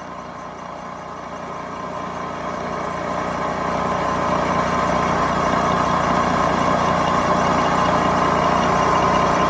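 Milling machine spindle running with a boring head taking a pass through a motorcycle triple clamp's fork bore: a steady mechanical hum that grows slowly louder.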